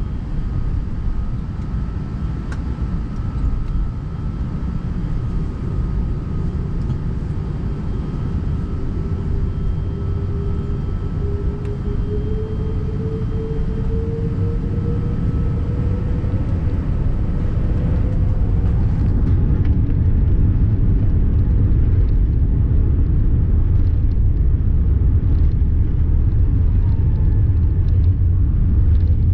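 Airbus A380 heard from inside the cabin as its engines spool up for takeoff: a slowly rising engine tone over a low rumble that grows steadily louder as the takeoff roll gets under way.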